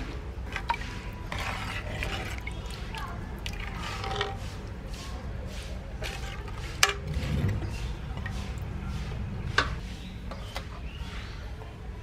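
Steel spoon stirring thin, watery soup in an aluminium pressure cooker: liquid sloshing and dripping, with three sharp clinks of the spoon against the pot, the loudest about seven seconds in.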